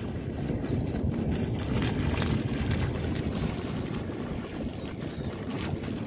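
Wind buffeting the microphone in a steady low rumble, with a dog's feet splashing as it runs through shallow water.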